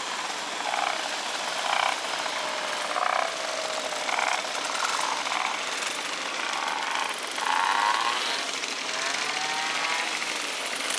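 Several small moped engines idling together in a group, with an engine revving up and down near the end.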